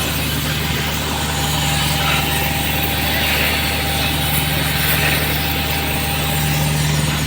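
An engine idling steadily, with a continuous hiss over it.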